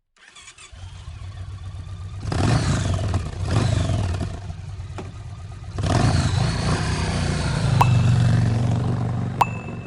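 Motorcycle engine revving in several surges over a steady low rumble, with two short sharp clicks near the end.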